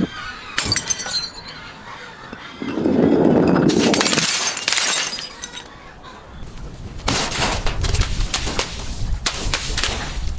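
Glass bottles breaking and crunching in several separate bursts: a sharp break under a second in, then longer stretches of crunching and shattering.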